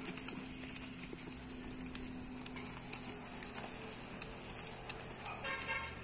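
Boer goats moving about a pen: scattered light hoof clicks over a steady high drone and a low hum, with a short pitched call near the end.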